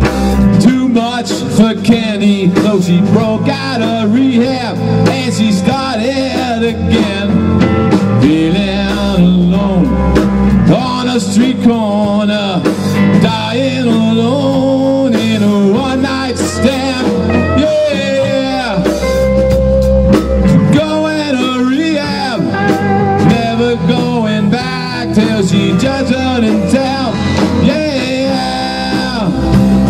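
Live rock band playing an instrumental passage: two electric guitars, one playing a lead line with notes bent and gliding in pitch, over a drum kit.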